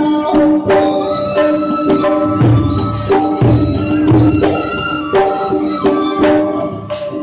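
Traditional Meitei Lai Haraoba dance music: a held melodic line over drum strokes about twice a second.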